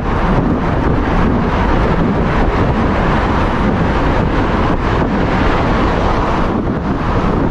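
Steady, loud wind rush buffeting the camera microphone as a road bike rides at speed through a road tunnel.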